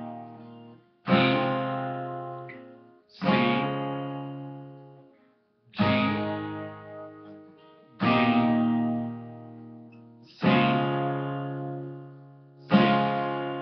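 Acoustic guitar, capoed at the first fret, strummed one chord at a time through the G, D, E minor, C progression: six single strums about two seconds apart, each left to ring and fade out.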